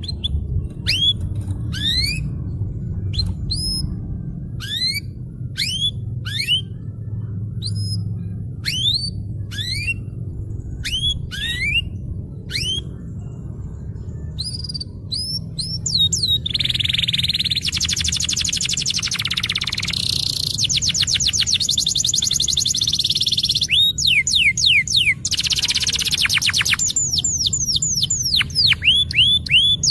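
Domestic canary singing. It starts with a slow series of separate rising whistled notes, roughly one a second. About halfway in it breaks into fast rolling trills and buzzy phrases: the continuous 'rolling' song that canary keepers call gacor ngerol.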